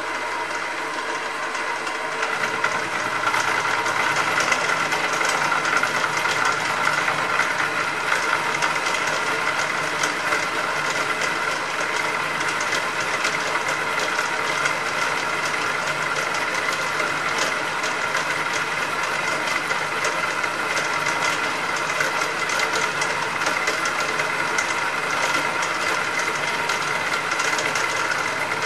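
Metal-cutting machine tool running and taking a hand-fed cut in a lubricated metal workpiece, with a steady cutting noise and a held whine. The cut gets louder about two seconds in and then stays even.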